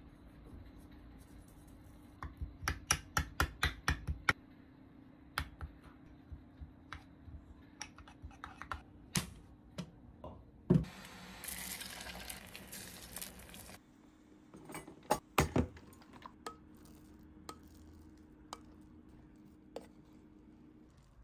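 Metal spoon clinking against a small ceramic bowl while mixing a seasoning sauce, in a quick run of clicks a couple of seconds in and then in scattered taps. A short hiss follows about halfway through, with a few more kitchen clicks after it.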